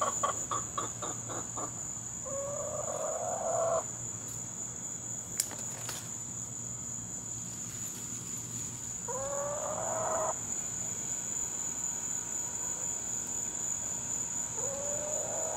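Steady high-pitched drone of insects on a summer afternoon, with three long pitched animal calls, each about a second and a half, spaced roughly six seconds apart. There is one sharp click about five seconds in.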